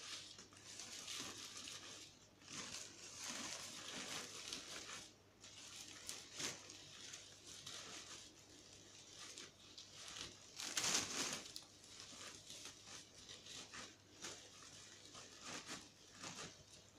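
Dry hay rustling and a plastic bag crinkling as hands stuff hay into a plastic hay ball: an irregular run of short scratchy rustles, louder about eleven seconds in.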